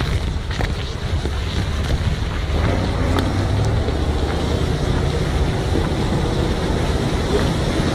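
KamAZ truck's diesel engine pulling hard under load as the truck ploughs through slush and broken river ice, with water and ice splashing around it and wind on the microphone.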